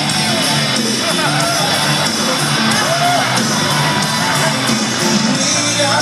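Loud rock entrance music over the arena sound system, with the crowd cheering, whooping and shouting over it.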